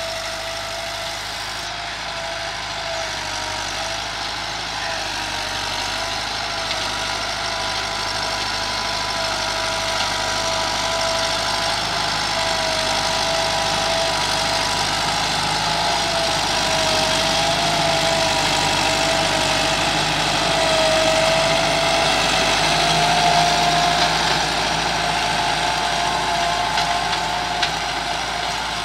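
Massey Ferguson MF 385 tractor's four-cylinder diesel engine running steadily under load while pulling an 11-tine cultivator through the soil. Its drone carries a slightly wavering whine. It grows louder as the tractor draws near, is loudest about three-quarters of the way through, then eases off.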